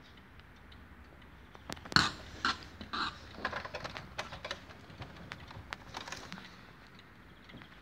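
Handling noise from a scale model car being touched: a run of sharp clicks and taps, the loudest about two seconds in, thinning out after about six and a half seconds.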